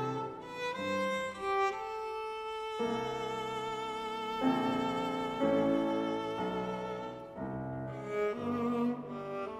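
A viola plays a slow, singing melody with vibrato on its held notes, accompanied by piano chords.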